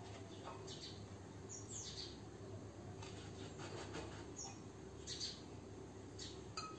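Faint bird chirps, a few short high calls that fall in pitch, over a low steady hum, with soft taps of a steel bowl pressed through dough onto a steel plate.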